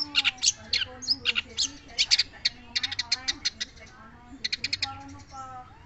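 Long-tailed shrike (cendet) singing: a stream of short, sharp high chirps broken by quick rattling runs of notes, about seven a second, near the middle and again about three-quarters of the way in.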